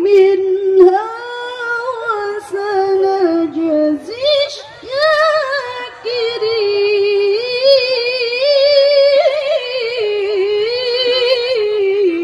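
Melodic Qur'anic recitation (tilawah) by a single high-voiced reciter over a stage sound system: long, ornamented held notes with a wavering vibrato, broken by short breath pauses about four and six seconds in.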